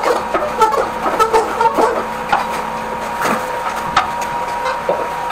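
A machine running with a steady whine, with irregular knocks and clicks over it.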